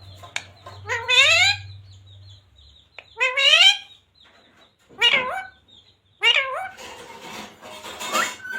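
Pet parrot calling: four short, high-pitched calls, each a quick rise and fall in pitch, about every one and a half to two seconds.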